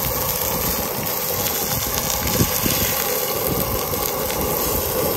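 Pork belly sizzling on a hot cast-iron cauldron-lid griddle (sotttukkeong): a steady hiss with a few crackles and pops.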